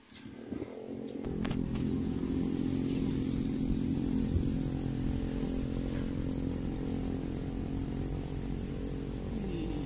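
A small engine begins running about a second in and carries on as a steady low hum at idle.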